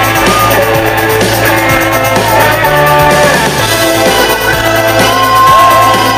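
Live band music, loud and full: electric guitar and keyboards over a bass line that steps between notes, heard through a crowd recording.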